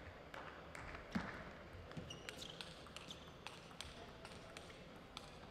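Table tennis rally: the celluloid-type ball ticks sharply off the bats and the table, about two to three ticks a second, with a few short squeaks in between.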